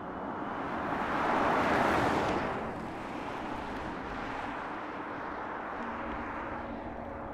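Volvo C40 Recharge, a battery-electric car, driving past: a rush of tyre and road noise that swells to a peak about two seconds in, then eases off as the car moves away.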